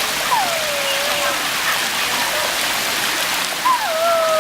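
Waterfall rushing as a steady hiss of falling water. Two drawn-out calls slide down in pitch over it, one just after the start and one near the end.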